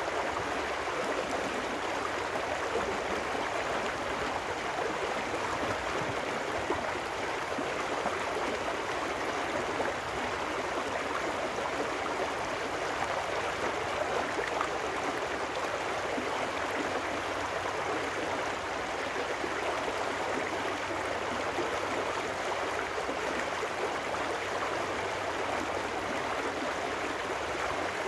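Trout stream running fast over rocks, a steady rush and splash of water breaking in small white-water riffles.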